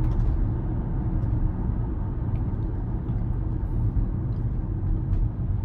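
Steady low road and tyre rumble heard inside the cabin of an electric Tesla Model Y driving at moderate speed, with a few faint ticks.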